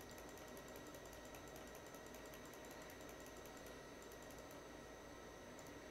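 Faint run of computer mouse clicks over a low steady hiss: clicking the small nudge arrows in Blender's transform panel to step an object along its X axis. The clicks come thickly for the first few seconds and thin out near the end.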